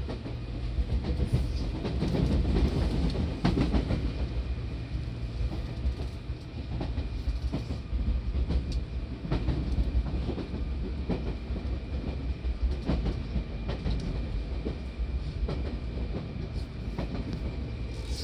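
Seibu 2000 series electric train heard from inside the car while running: a steady rumble of wheels on rail, with repeated clicks and knocks as the wheels pass over rail joints.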